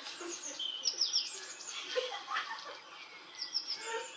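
Birds chirping: many short, high chirps that slide downward in pitch, some in quick runs of two or three.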